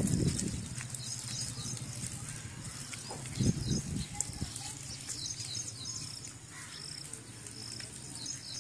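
Small birds chirping, a stream of short, high, repeated calls over a steady outdoor background, with a low rumble at the start and another about three and a half seconds in.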